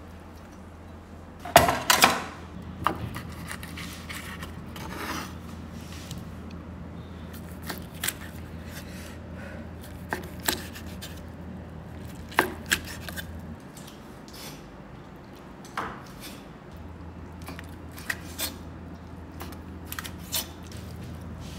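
Chef's knife slicing pork back fat into strips on a wooden chopping board: irregular knocks of the blade on the board, loudest at about two seconds in, over a steady low hum.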